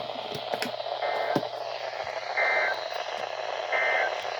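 Weather radio receiver hissing with static, with a few clicks in the first second, then three short, evenly spaced digital data bursts about a second apart. These fit the Emergency Alert System's end-of-message code that closes an alert broadcast.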